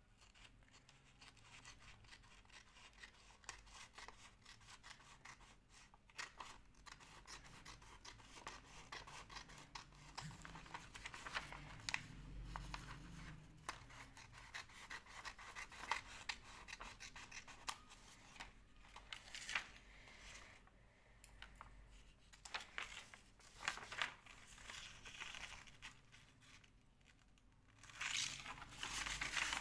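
Metal scissors snipping through a sheet of paper in short, irregular cuts, with the paper rustling as it is handled; the handling grows louder near the end.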